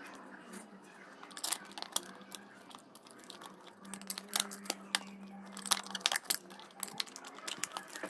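A screwdriver and a plastic wall switch faceplate being handled and screwed into place: scattered plastic clicks, taps and scrapes. A faint steady hum runs underneath, clearest in the middle.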